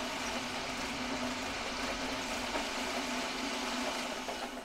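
Electric drive motors of a 1/6 scale Armortek M26 Pershing model tank running its newly fitted tracks: a steady mechanical hum that cuts off suddenly at the end.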